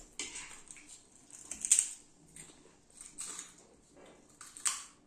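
Close-up eating sounds: chewing and mouth noises in a few short bursts, the loudest about a second and a half in and another near the end.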